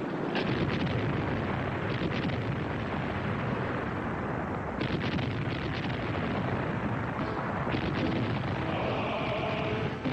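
Battle sound of explosions and gunfire: a continuous heavy rumble with sharp cracks now and then. Music with singing begins near the end.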